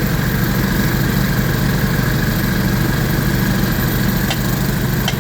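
An engine running steadily at idle, with two faint clicks near the end.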